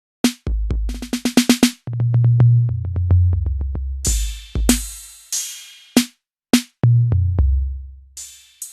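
Yamaha DTX8 electronic drum kit played through its module with no added processing: kick and snare hits, a quick snare roll about a second in, then a fill down the toms from high to low. A crash cymbal with kick hits about four seconds in and again near the end.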